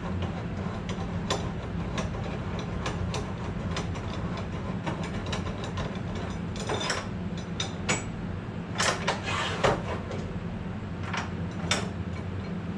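Clicks, clacks and metallic rattles from a new 14-inch metal-cutting chop saw being handled and its adjustable parts worked. A louder cluster of clacks comes around nine seconds in, all over a steady low hum.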